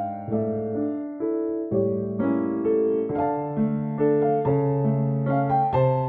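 Solo piano music: a melody played over changing chords, with new notes struck every half second or so.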